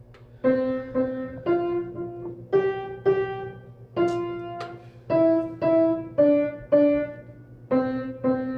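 Upright piano played one note at a time: a simple melody of single struck notes, mostly in repeated pairs about half a second apart, stepping down in pitch over the second half.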